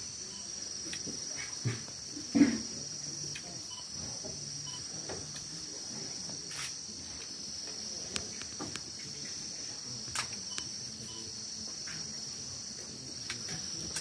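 Steady, shrill insect chorus with a constant high pitch, such as crickets in forest at dusk. A few short clicks and knocks sound over it, the loudest a brief low thud about two and a half seconds in.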